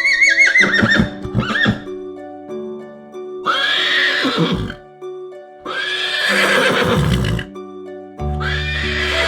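Horse neighing, four separate whinnies, each a quavering call that falls away in pitch, over light background music.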